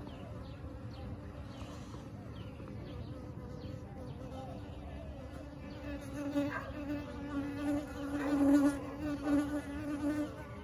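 Bees from a swarm in a brick wall buzzing around the nest. From about six seconds in, a louder, low, steady buzz swells and fades several times as bees fly close past.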